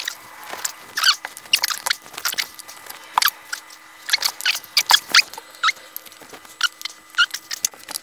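Wooden bar stool parts handled and fitted together during assembly: irregular sharp clicks and knocks, some with short squeaks.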